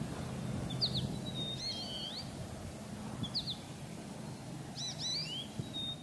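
Birds chirping outdoors: short, high notes in a few quick clusters over a steady low background rumble.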